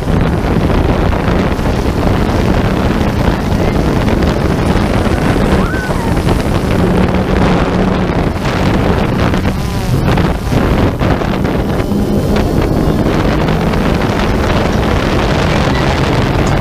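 Heavy wind noise on the microphone over a steady low motor drone that wavers slightly in pitch, like a motorboat out on the water.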